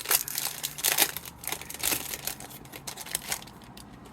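Plastic wrapper of a hockey card pack crinkling and tearing as it is opened, with sharp crackles. It dies down to a quieter rustle about three and a half seconds in.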